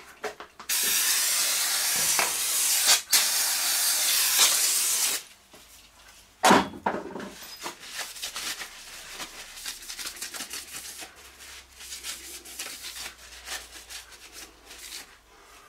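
Aerosol brake cleaner sprayed in a long hiss of about four and a half seconds, with a brief break partway, degreasing a milling machine's readout-scale rail; a single sharp clunk follows a second later. Then a rag rubs and wipes along the rail.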